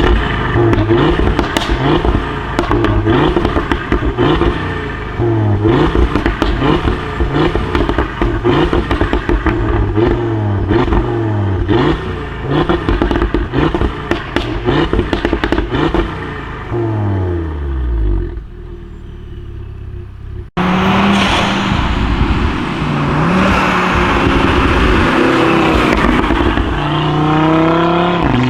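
Audi RS3 8V's tuned turbocharged five-cylinder, remapped and fitted with an aftermarket downpipe, revving again and again with pops and crackles from the exhaust on each lift-off. After a sudden cut about two-thirds of the way in, it runs on louder with a rushing noise, and the revs climb near the end.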